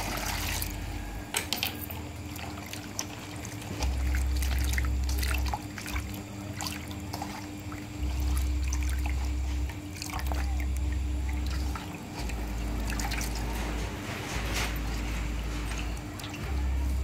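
Water poured into a metal basin of cut water spinach, then hands swishing and splashing the greens as they are washed, with drips and small splashes. A low rumble comes and goes every couple of seconds.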